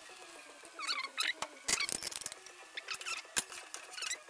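A large metal spoon stirring soup in an aluminium pot, scraping with short squeaks and clinking sharply against the pot several times.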